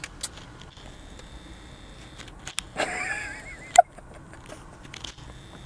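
Quiet car cabin with handling noise and a few sharp clicks, the loudest a bit under four seconds in, and a brief murmured sound about three seconds in.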